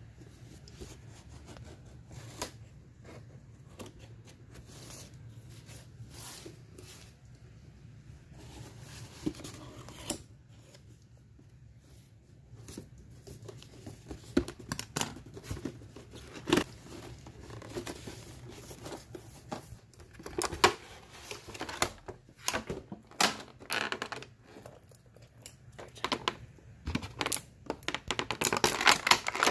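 Scissors snipping at a cardboard toy box, then the box being torn open and a clear plastic blister tray pulled out, crinkling and crackling. Sparse small clicks at first; the crackling grows denser and louder over the second half.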